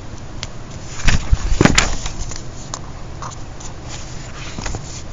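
Paper pages of a composition notebook being turned and pressed flat by hand: rustling with a few soft thumps, the loudest about a second and a half in.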